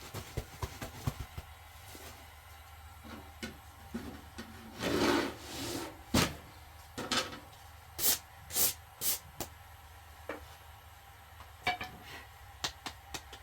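Scattered knocks and taps with a few short rasping, rubbing sounds. A sharp knock just after six seconds is the loudest, followed by three quick scrapes.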